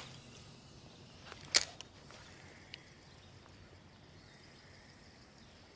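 Quiet outdoor ambience with a faint steady high insect-like hum, broken by one sharp click about a second and a half in and a couple of fainter ticks after it.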